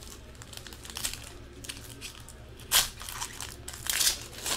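Foil wrapper of a 2015 Panini Prism football card pack crinkling and tearing as it is opened by hand, in short crackles, with the sharpest about three seconds in and another near four seconds.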